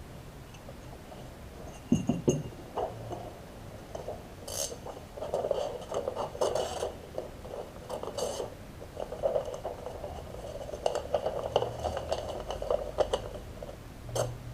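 A packaged box being opened and its contents handled: sharp knocks with irregular clicking and crinkling of packaging, the loudest knocks about two seconds in and just before the end.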